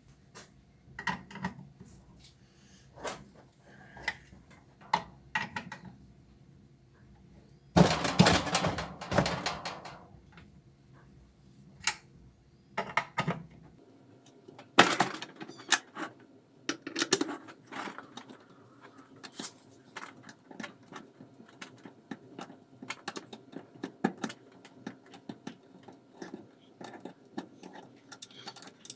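Irregular clinks, knocks and rattles of tools and metal parts being handled while a washing machine is taken apart. About eight seconds in there is a louder rattling stretch of about two seconds, and from about halfway there is a fast run of small clicks.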